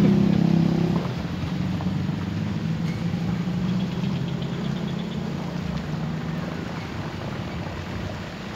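Motor vehicle engine running with a steady low hum while under way. It drops in level about a second in as the engine eases off, then runs on more quietly.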